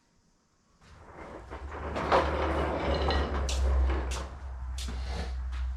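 Several sharp knocks and clanks of metal parts being handled over a steady low rumble, after a brief near-silent moment at the start.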